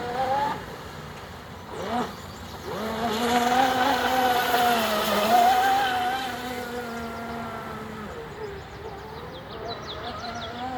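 Large electric RC catamaran's motor, converted from gas, whining at speed on a run. A short rising whine about two seconds in, then a steady pitched whine that swells and fades away after about eight seconds.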